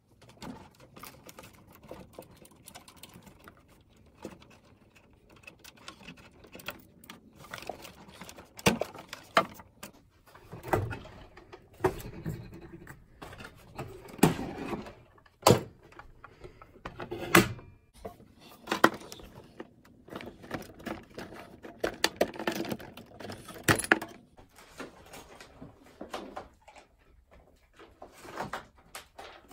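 Computer cables being unplugged and handled at a desktop PC: a long run of irregular clicks, knocks and rattles of plugs and connectors being pulled and set down.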